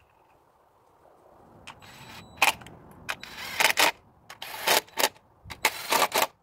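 Cordless impact driver run in about five short bursts, driving the ignition coil hold-down bolts into the engine's valve cover.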